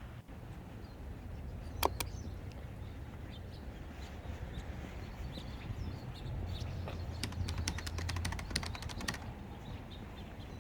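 Steady low hum with light clicks: two sharp clicks about two seconds in, then a quick run of clicks, about ten a second, from about seven to nine seconds.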